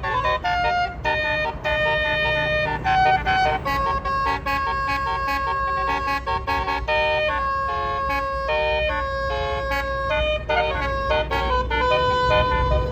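Bus telolet basuri horn playing a quick melody of short and held notes, over the low rumble of the bus engine.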